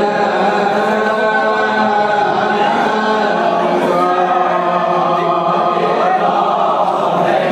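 A group of men chanting an Urdu noha, a Shia lament, together into microphones, with long drawn-out sung lines and no instruments.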